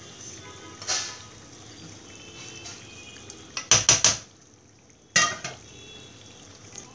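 Pans and a spatula at the stove: white sauce scraped out of a non-stick pan with a silicone spatula, a few sharp clatters of the pan and spatula knocking together near the middle, then one more clatter as the emptied pan is set down on the stove.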